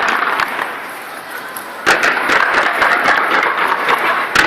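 Crowd of onlookers shouting and cheering while fireworks go off. A sharp bang about two seconds in brings a louder surge of crowd noise, and another crack comes near the end.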